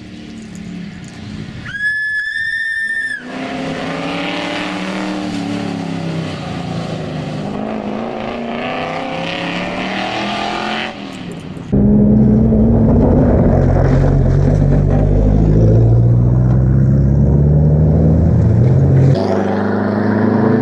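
Triumph TR7 V8 rally car's V8 engine running hard, its pitch rising and falling with throttle and gear changes as it passes, with a brief high-pitched squeal about two seconds in. Near the middle it becomes much louder and closer, holding high revs.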